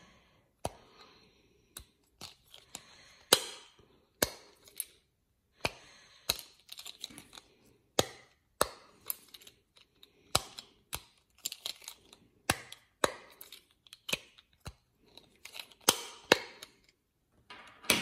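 Silicone bubbles of an original Fat Brain Toys Simpl Dimpl fidget toy being pushed in and out by thumb, each one flipping with a short, sharp, crisp pop. The pops come over and over at an uneven pace, one to three a second.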